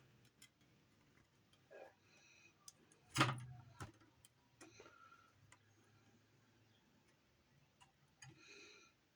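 Faint scattered ticks and small taps of drawing and handling a piece at a workbench, with one louder knock about three seconds in.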